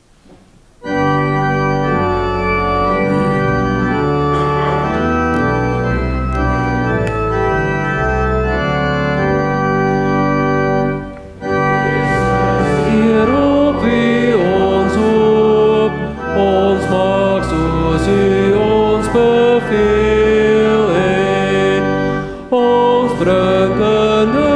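Church pipe or electronic organ playing a hymn introduction in held chords, starting about a second in. After a short break near the middle, the congregation starts singing the hymn with the organ.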